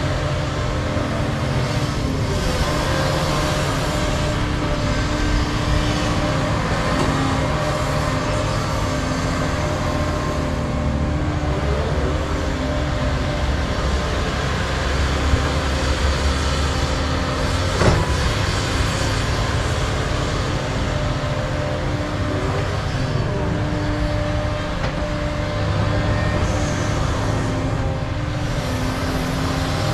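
Excavators' diesel engines running steadily under working load, the nearest a Cat 335 digging and swinging topsoil. A single sharp knock comes about two-thirds of the way through.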